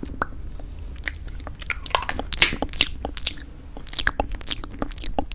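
Close-miked wet mouth and lip sounds, many short crackly clicks, mixed with taps and clicks from handling a metal lipstick tube.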